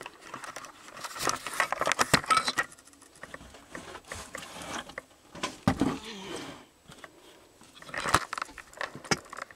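Camera being laid down and handled, with rustling, clicks and knocks on attic boards; the busiest clatter comes a second or two in, with single louder knocks near the middle and near the end.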